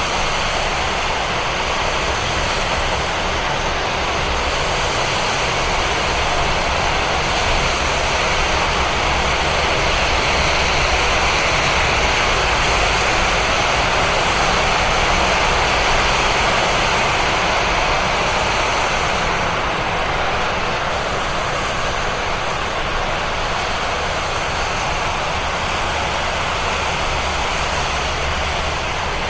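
Traffic on a wet road in the rain: a steady hiss of tyres on wet pavement over a low engine rumble, swelling in the middle as a vehicle passes and easing off again.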